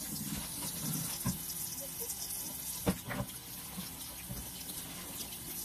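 Kitchen faucet running steadily into a stainless steel sink as raw salmon fillets are rinsed under the stream. Two short knocks come about a second in and about three seconds in.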